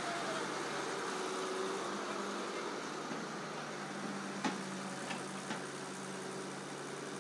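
Heavy machinery engines of an excavator and a loaded dump truck running steadily, with three sharp knocks about halfway through, the first the loudest, as the excavator bucket swings over and drops soil and clods onto the heaped load in the steel truck bed.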